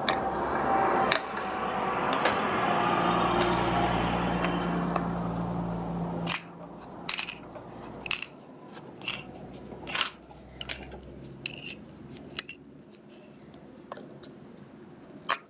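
A knife blade scoring a bamboo stem, making sharp cutting clicks about once a second. Before the cuts stand out, a steady rushing sound with a low hum swells and then dies away about six seconds in.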